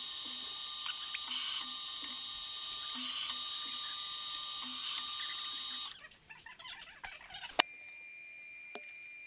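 Metal lathe running while single-point cutting a thread on a metal workpiece: a steady high whine with faint low pulses and a louder swell about every second and a half. About six seconds in the sound drops away, and after a sharp click the lathe runs on more quietly with a steady tone.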